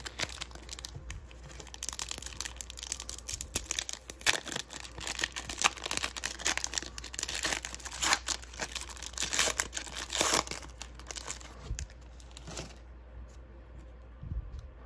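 Foil wrapper of an Upper Deck Synergy hockey card pack crinkling and tearing as it is torn open by hand. The crackling stops about two seconds before the end, leaving only faint handling of the cards.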